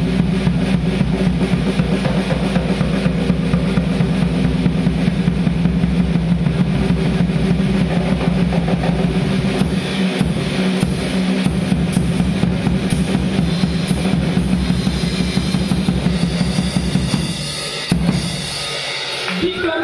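Acoustic drum kit solo: fast, dense strokes across toms, snare and bass drum with cymbals, near the end a last cymbal crash that is left to ring out.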